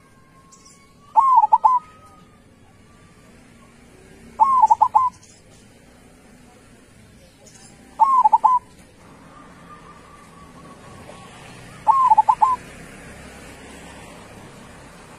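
Zebra dove (perkutut) singing its short, rolling coo phrase four times, about every three to four seconds, each phrase a quick run of a few notes.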